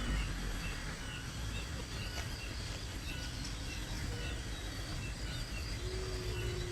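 Outdoor ambience: steady background noise with a low rumble, and faint short chirps repeating about twice a second.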